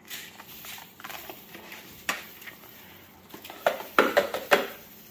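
Water softener resin beads pouring from a plastic tub through a plastic funnel into the softener tank: a faint steady hiss with scattered ticks, then a few louder clattering strokes around four seconds in as the tub is tipped against the funnel.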